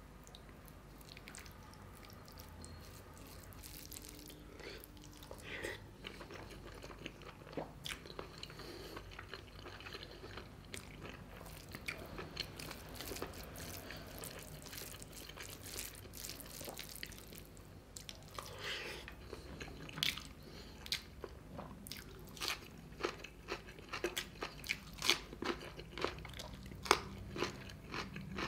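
Fingers mixing rice into chicken gizzard curry on a steel plate: soft squelching with many small clicks and taps of fingers on the plate, coming more often and louder in the last third.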